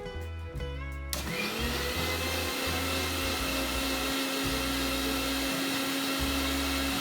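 Electric kitchen blender switched on about a second in, its motor spinning up with a brief rising whine and then running steadily as it blends milk and ice cream.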